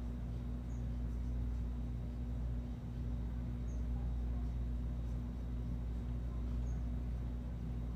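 A steady low hum with no change throughout, and a faint short high chirp about every three seconds.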